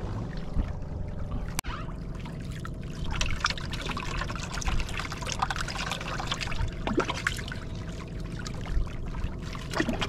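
Sea water lapping and trickling against the hull of a small outrigger boat, with scattered small splashes over a steady low rumble.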